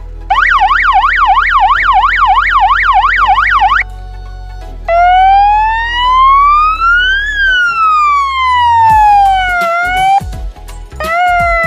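Electronic police siren horn sounding its tones through its small speaker: first a fast yelp warbling up and down about three times a second, then after a short pause a slow wail that rises and falls, cut short and restarted near the end.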